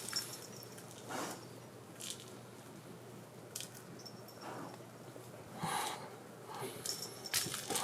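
Occasional soft rustles and light taps, about one a second, over quiet room tone, with a few louder ones near the end.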